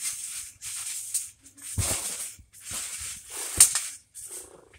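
A rhythmic series of rustling, shaking swishes, about one a second, with two sharp thuds among them, about two seconds in and near the end.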